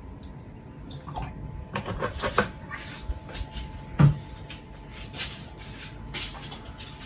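Kitchen handling noises at a gas stove as oil goes into a wok: a run of light knocks and clinks, then one heavy thump about four seconds in, the loudest sound, followed by a few brief rustles.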